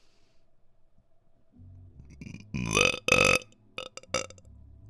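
A woman belching deep burps: two loud ones back to back about two and a half seconds in, then a few short smaller ones.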